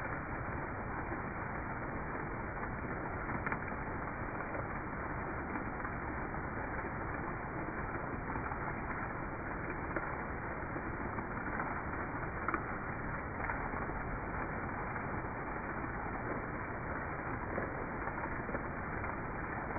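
Steady rain falling, an even rushing hiss with a few sharp ticks of drops scattered through.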